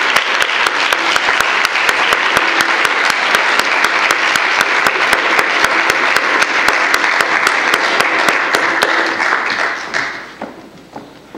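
Audience applauding: dense, steady clapping that dies away about ten seconds in.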